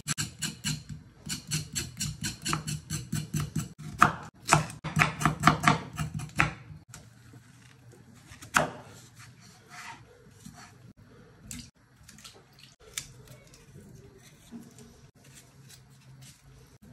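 A kitchen knife scraping the skin off a raw white turnip: quick, even scraping strokes, several a second, for the first six seconds or so. After that come fainter, scattered scrapes and cuts, with one sharper stroke a little past the middle.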